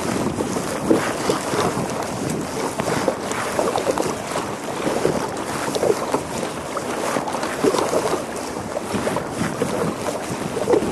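Choppy water lapping and splashing irregularly against the plastic hull of a sit-on-top kayak as it moves, with wind buffeting the microphone.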